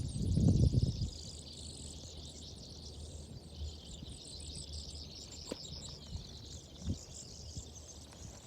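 Chorus of many small birds chirping and twittering together in a dense high-pitched layer, with a loud low rumble in the first second and a couple of faint knocks later.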